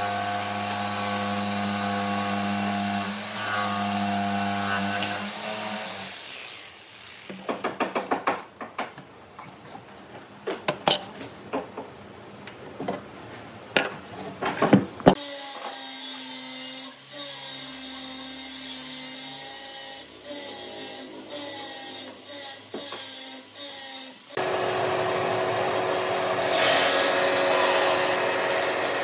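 Woodworking tools at work on wood. A power tool motor runs steadily for about six seconds. A run of sharp knocks follows, then a tool starts and stops repeatedly, and near the end a steady, noisy power-tool sound sets in.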